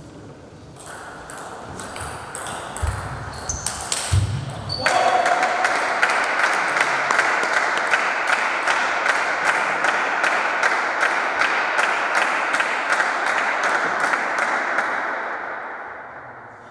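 A few sharp table tennis hits and thuds, then from about five seconds in, spectators clapping fast and steadily for about ten seconds, ringing in the hall, before fading out near the end.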